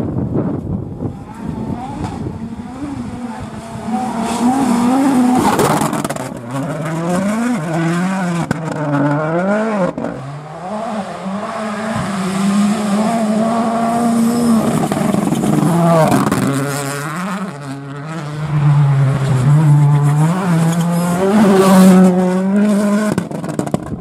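Ford Puma Rally1 car's turbocharged 1.6-litre four-cylinder engine driven hard on gravel. Its pitch climbs and drops sharply again and again with quick gear changes and throttle lifts, loudest about five seconds in and near the end.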